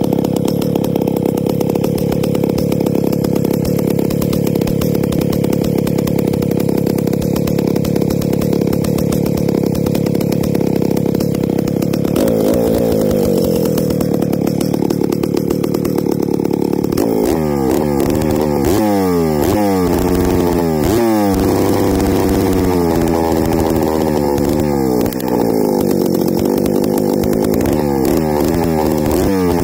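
Stihl 076 AV EQ Super chainsaw's two-stroke engine running through a homemade pipe exhaust brazed from steel tubing. It runs steadily for about twelve seconds, then the throttle is worked over and over, the engine note swinging up and down with each rev.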